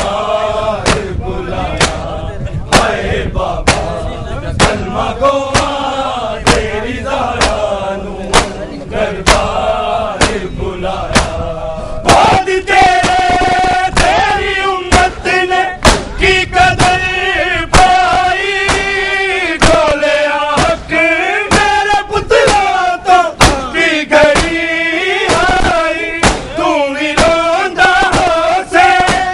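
Crowd of men chanting a noha (Shia lament) in unison, with sharp slaps of hands striking bare chests in matam. About twelve seconds in the singing becomes louder and clearer.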